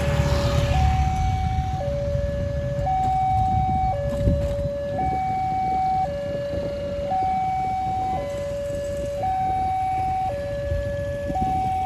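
Automatic railway level-crossing warning alarm sounding a two-tone signal, switching between a lower and a higher tone about once a second: the crossing is closing for an approaching train as its barrier arms come down. A motorbike engine passes close by near the start.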